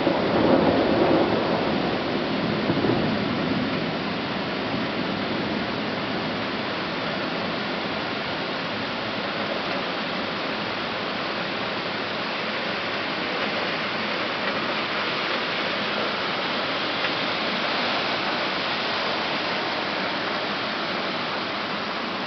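Heavy rain pouring down in a steady hiss. For the first three seconds a deeper, louder rush swells over it, then eases off.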